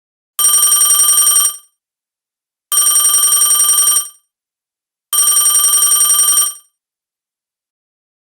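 Telephone bell ringing three times, each ring a rapid trill lasting just over a second, with about a second of silence between rings.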